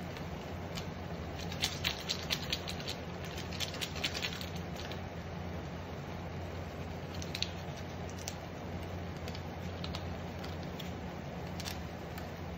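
Instant yakisoba noodles crackling and popping in a frying pan as the cooking water boils off. There is a cluster of pops a couple of seconds in and a few scattered ones later, over a steady low hum from the electric cooktop.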